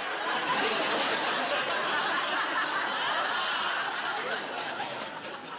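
Studio audience laughing at a joke: a long, steady wave of crowd laughter that starts to die down near the end.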